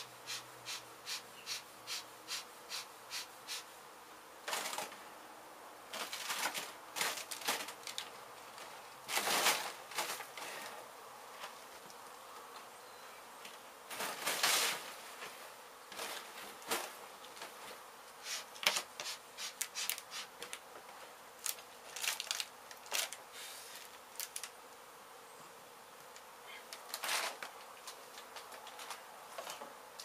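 A swarm of honey bees buzzing steadily around an exposed hive. Over it come short knocks and scrapes as debris and comb are handled: an even run of about two a second at the start, then irregular ones, with two longer, louder scrapes.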